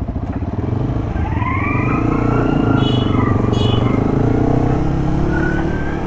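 Motorcycle engine running on the move, its pitch rising as it accelerates from about a second in. Two short high tones sound about three seconds in.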